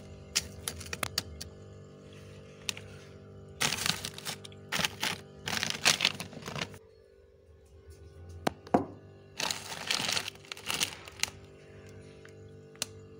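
Crisp crunching and crackling of thick freezer frost being scraped up and crushed, in three bursts of a second or more with single sharp cracks between them. A steady low hum runs underneath.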